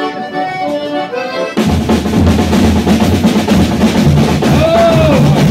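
An accordion phrase ends about a second and a half in, and a drum band of snare drums and bass drums strikes up, snare rolls over steady bass-drum beats.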